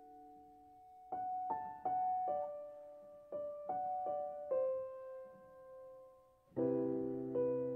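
Solo piano playing a slow, gentle melody of single notes, one after another, after a held note dies away; near the end a fuller chord with low bass notes comes in.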